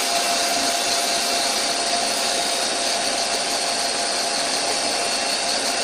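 CNC lathe spindle running while a turret tool, fed by the manual handwheel, cuts the spinning workpiece to touch off for tool offset setting. It makes a steady hiss with a faint steady whine.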